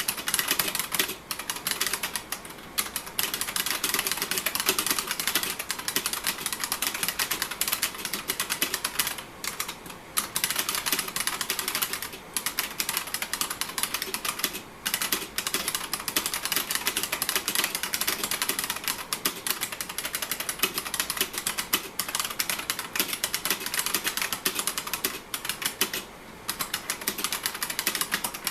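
IBM Model M2 keyboard's buckling-spring keys being typed on continuously: a dense run of sharp clicks, with brief pauses a few times.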